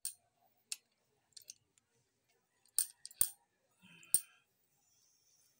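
Honda Wave 125 gearbox gears and shafts clinking against each other as they are turned by hand in the open crankcase half. About half a dozen sharp, irregular metal clicks, the loudest near the middle.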